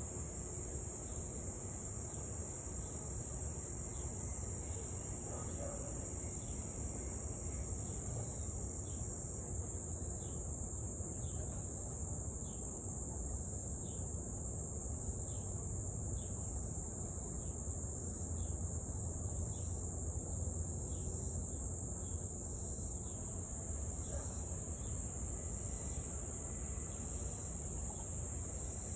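A steady, high-pitched chorus of insects trilling without a break. Faint short falling chirps repeat about once a second through the middle.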